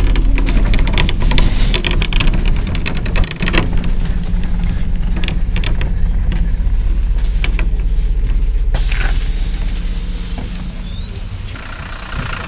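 MAZ 203 city bus heard from inside the cabin while riding: the diesel engine's steady rumble with rattling of the body and fittings, busiest in the first few seconds. Near the end the bus is heard from outside at the stop, quieter.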